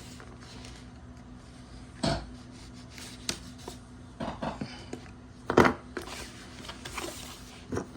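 Scattered knocks, clicks and scrapes of a cardboard box and a knife being handled while the box is opened, the loudest knock about five and a half seconds in.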